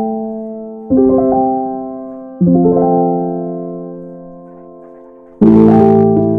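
Background piano music: chords struck one after another, each left to ring and fade, with a louder, fuller chord about five and a half seconds in.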